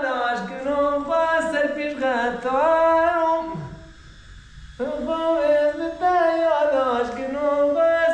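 A single voice singing without accompaniment: a slow tune of long, sliding held notes, breaking off for about a second near the middle.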